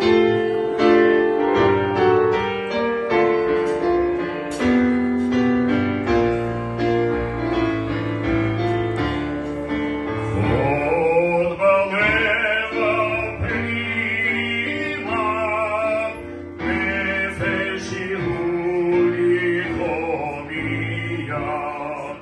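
Piano playing an introduction of chords; about ten seconds in, a man starts singing with vibrato into a microphone over the piano accompaniment.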